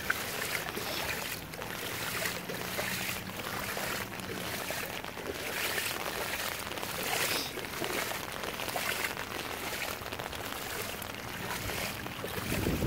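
Boots wading through floodwater, a swish and slosh with each step, a little over one step a second. Wind starts buffeting the microphone just before the end.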